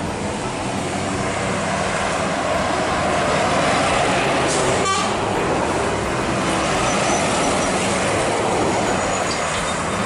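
DAF tractor unit with an empty flatbed trailer driving past, its diesel engine running with tyre and road noise, loud and fairly steady throughout. There is a brief dropout about five seconds in.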